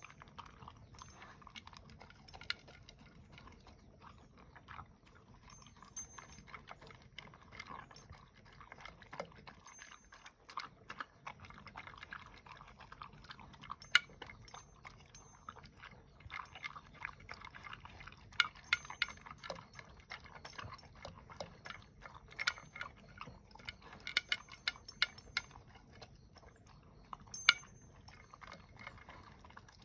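A dog eating from a plastic bowl: chewing, with many irregular sharp clicks from the bowl and food.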